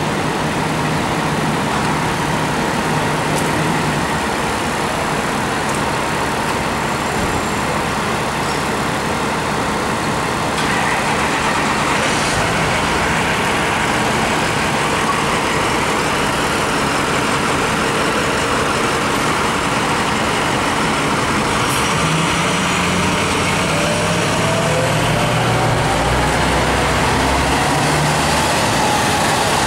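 Fire engine's diesel engine running as the pumper manoeuvres to back in, over steady city traffic noise; the engine's low rumble grows stronger in the last several seconds as the truck comes close.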